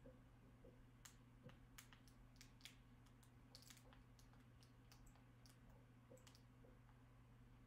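Near silence with a low steady hum, broken by a dozen or so faint, irregular clicks of remote-control buttons being pressed to type on an on-screen keyboard.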